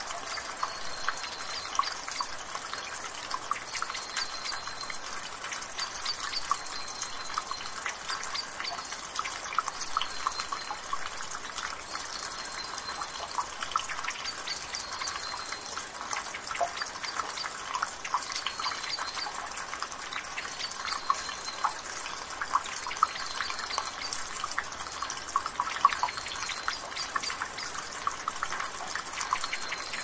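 Water dripping and trickling from a gutter: a steady splashy trickle with many quick, irregular drips.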